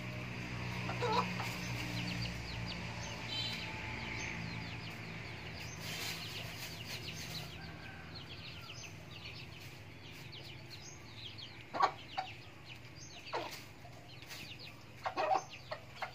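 Outdoor bird ambience: many quick faint chirps throughout, with a handful of louder short calls in the last five seconds. A low steady hum sits under the first five seconds.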